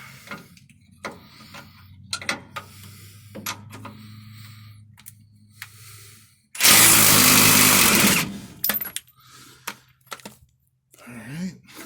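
Impact wrench hammering in one burst of about a second and a half, breaking loose the lower mounting nut of a truck's rear shock absorber. Before it, scattered clicks and knocks of tools being handled.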